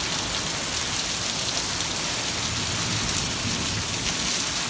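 Very heavy desert monsoon rain pouring down in a steady, loud hiss.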